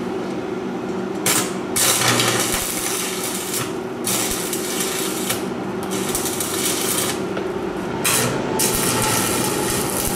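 Wire-feed (MIG) welder arc crackling and hissing as it welds steel electrical-conduit tubing, in several bursts of one to two seconds with short pauses between, starting about a second in. A steady low hum runs underneath.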